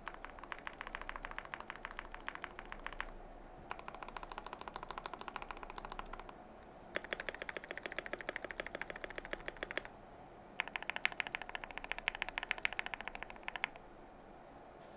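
Custom KBD67 R4 mechanical keyboard with lubed Gateron Milky Yellow linear switches and PBT keycaps, keys pressed in rapid, even runs of clicky-thocking strokes. Four runs of about three seconds each, separated by short pauses; the last run sounds higher and sharper.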